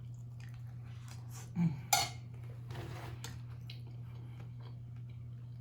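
Cutlery clinking and scraping on a plate while eating, with one sharper clink about two seconds in, over a steady low hum.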